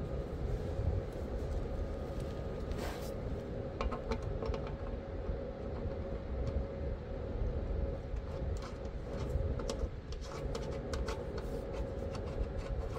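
A steady low rumble with a faint, even hum underneath, broken by scattered light clicks and taps from hand tools, with a small cluster of them near the end.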